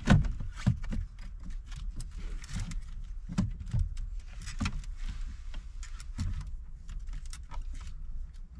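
Irregular knocks, clicks and scrapes of a plastic dashboard trim panel being pried and worked loose from its clips with plastic pry tools, with a sharp knock right at the start.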